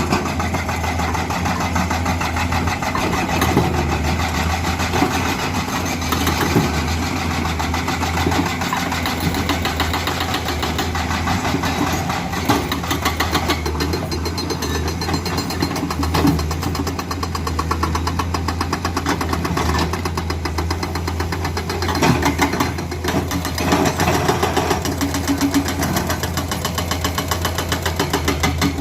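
Excavator's diesel engine running under load while its hydraulic breaker hammers rock in a rapid, continuous rattle of blows.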